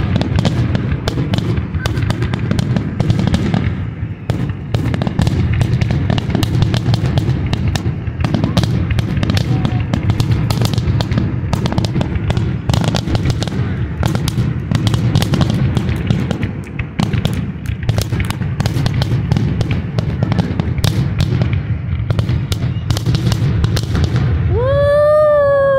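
Aerial fireworks bursting: rapid, near-continuous crackling and popping over a steady low rumble. Near the end a high voice cheers with one long rising-then-falling 'whoo'.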